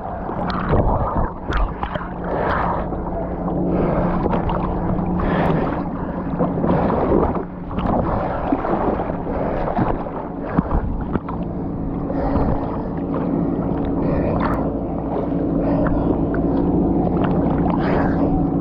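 A motor engine running with a steady drone, under irregular rushing, crackling noise.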